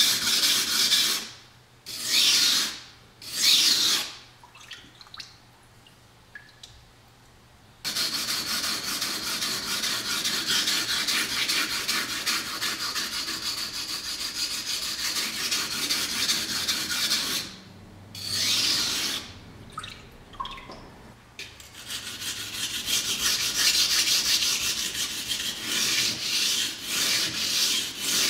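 R2 steel knife blade scraping back and forth on a wet coarse whetstone in quick, even strokes, grinding steel off the whole edge to take out a chip. The strokes stop for brief pauses, the longest about four seconds near the start.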